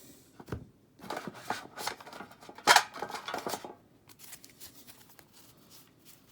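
Stacks of Pokémon trading cards handled and flipped through by hand: a run of soft card rustles and clicks, with one sharp knock about three seconds in, then quieter handling.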